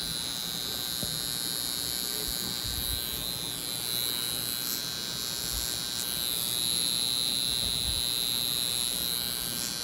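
High-frequency skin-treatment wand with a glass electrode, running with a steady high-pitched electrical buzz. It is held on a freshly micropigmented eyebrow to help stop the bleeding and aid healing.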